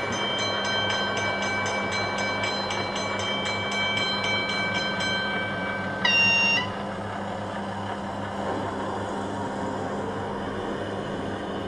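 O-scale model German railbus's DCC sound decoder playing a steady diesel engine hum through the model's small speaker, with a single short horn toot about six seconds in, the loudest sound. Over the first five seconds a bell rings quickly and evenly, about three strokes a second, then stops.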